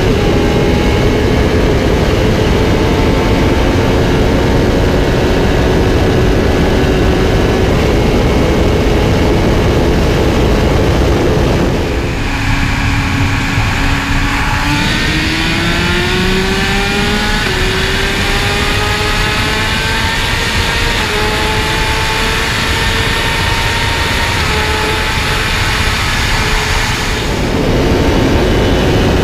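Ducati Panigale 1199's V-twin engine pulling hard at full throttle well above 200 km/h, with heavy wind rush, its pitch slowly rising. About twelve seconds in the sound switches to another sportbike's engine, climbing steadily in pitch as it accelerates. Near the end it switches back to the Ducati.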